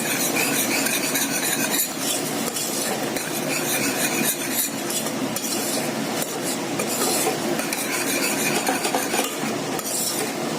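A spoon stirring and scraping spice powders through masala paste frying in oil in a pressure cooker, scraping against the pot, with a steady sizzle underneath.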